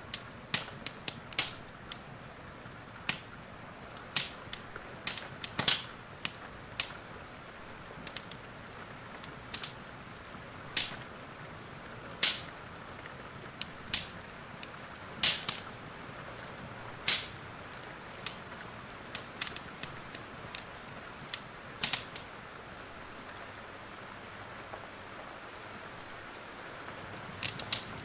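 Steady hiss of rain with the irregular crackles and sharp pops of a wood fire burning in a fireplace, some pops much louder than the rest.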